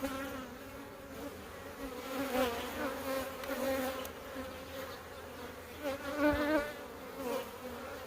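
Honeybees buzzing around an opened hive, a dense, steady hum of many wingbeats that swells louder about two and six seconds in.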